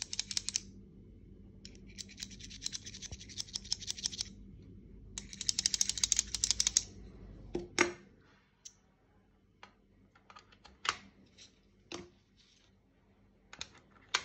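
Precision screwdriver's steel tip worked back and forth in the slot of a plastic magnetizer/demagnetizer block: three bouts of fast rattling scrapes. These are followed by scattered single clicks and knocks of plastic tool parts being set down and handled in the storage case, the loudest a little under eight seconds in.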